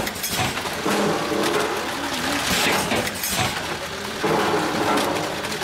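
Vertical form-fill-seal snack packaging machine running, with repeated mechanical clatter and hiss as it forms and seals bags.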